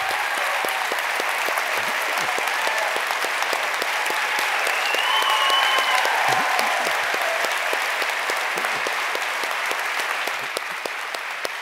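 Large audience applauding, with a few voices calling out over the clapping. The applause swells about halfway through and starts to die down near the end.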